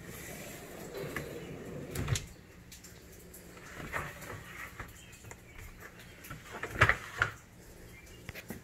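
A wooden pull-out shelf on metal drawer slides being pushed and pulled, with plastic laundry baskets shifted and knocked. There is a knock about two seconds in and a louder one about seven seconds in.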